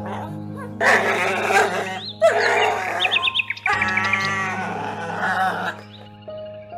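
A small terrier-type dog whining and vocalizing in three long stretches, over steady background music. A quick run of high chirps sounds about three seconds in.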